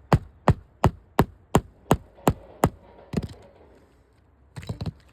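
Hand hammer driving a nail while a replacement roof shingle is fastened: a steady run of about eight blows at roughly three a second. Then a brief pause and a quick cluster of lighter knocks near the end.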